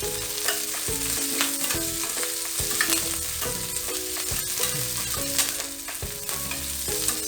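Chopped onion and curry leaves frying in coconut oil, sizzling steadily while being stirred, with scattered clicks of the spoon against the pan. The onion is sautéing until soft.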